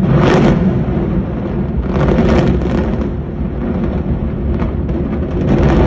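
Controlled implosion of a pair of concrete high-rise towers: a sudden loud rolling rumble from the chain of explosive charges and the collapsing structure, with repeated crackling surges of the blasts through it.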